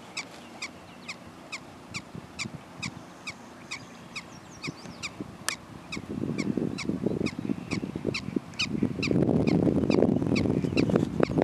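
Prairie dog barking, a steady series of short, high, chirp-like barks about two a second. About six seconds in a low rumbling noise on the microphone joins, and near the end it grows louder than the barks.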